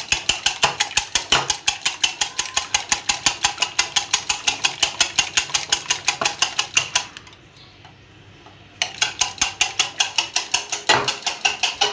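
Wire whisk beating eggs in a bowl, its wires clicking against the bowl in a fast, even rhythm of about six strokes a second. The whisking stops for about a second and a half about seven seconds in, then starts again.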